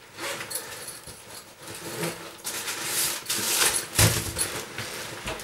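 Rustling and handling noises from things being moved about, with a sharp thump about four seconds in.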